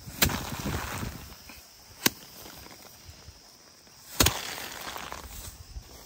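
Bundles of harvested rice stalks beaten down hard to thresh the grain: three sharp thwacks about two seconds apart, with the rustle of straw and scattering grain between the strokes.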